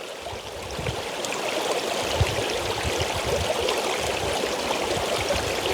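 Lake water lapping and splashing at the shoreline, a steady watery wash with small irregular surges.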